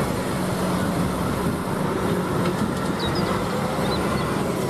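Concrete mixer truck's diesel engine running steadily, with a low even hum under traffic noise.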